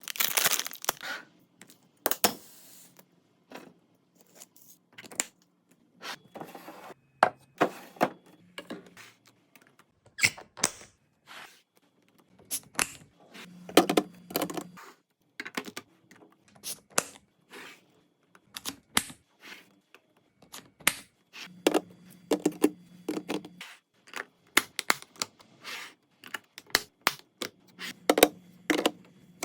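Refrigerator restocking: a steady string of clicks, knocks and light clatters as food containers and packages are handled, opened and set down on shelves, with some rustling of packaging. A low hum comes in for a second or two several times.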